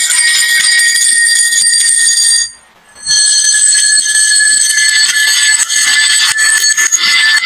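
Many glass marbles rattling and clinking down a wooden marble run, a dense high clatter with ringing tones. It cuts out for about half a second near the middle, then carries on.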